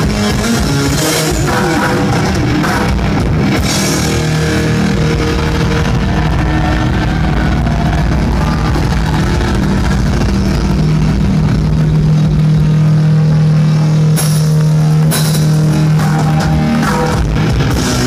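Heavy metal band playing live through a PA, recorded from the crowd on a phone: distorted electric guitar, bass and drum kit. A long held low note sounds through the second half.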